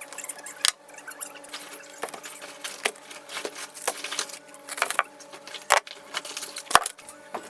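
Small hard objects clinking and knocking as they are handled and set down: irregular sharp clicks, a few louder knocks, over a steady faint hum.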